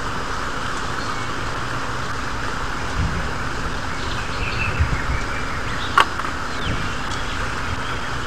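Steady rush of a river current flowing over a rocky bed, with a few soft knocks and one sharp click about six seconds in.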